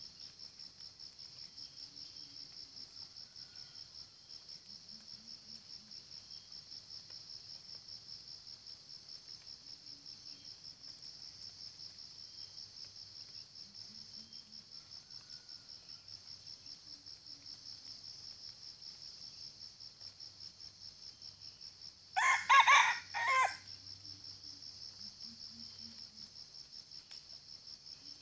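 Red junglefowl rooster giving one short, clipped crow in two or three parts, about three-quarters of the way through. It is loud and rises well above a steady, pulsing high buzz of insects.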